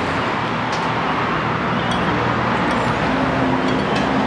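Steady road traffic noise, with a few faint clicks of cutlery against a plate.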